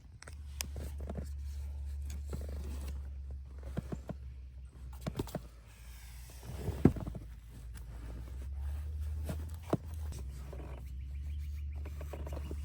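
Handling and rustling noise: scattered knocks, clicks and scrapes of things being moved about, with one sharper knock about seven seconds in, over a steady low rumble.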